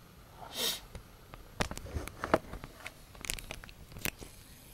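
Handling noise: a brief soft rustle about half a second in, then scattered light clicks and taps.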